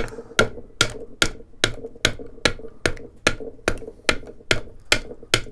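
Small hand adze with a Kestrel texturing blade striking a block of wood in quick, even strokes, about two and a half a second, each a sharp tap as the blade bounces off to cut a shallow texture along the grain.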